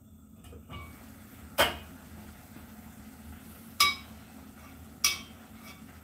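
Pot lid and metal spoon clinking against a cooking pot: three sharp strikes, each ringing briefly, as the lid comes off and the spoon goes into the pot.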